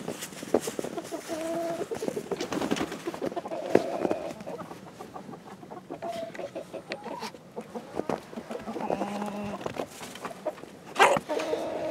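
A flock of chickens clucking steadily in their coop, with short calls overlapping throughout, and one brief, louder sharp sound near the end.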